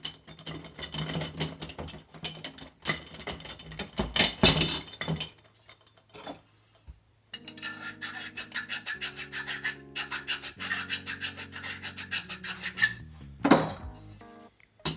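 Metal chainsaw-mill parts and hand tools scraping, rubbing and rattling during hand assembly. About seven seconds in, a fast, even run of clicks starts and lasts several seconds, followed by one loud scrape.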